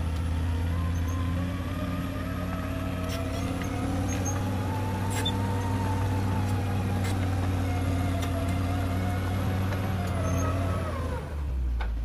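CAT D6R XL crawler bulldozer running under load as it tracks forward, a steady heavy diesel note with a whine above it that rises a little midway and falls away near the end as the engine note drops. A few sharp clanks sound over it.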